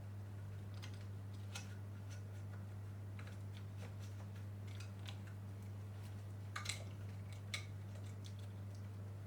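Light, scattered clicks and taps of small parts being handled while reassembling a one-wheel scooter, with two sharper clicks about six and a half and seven and a half seconds in, over a steady low hum.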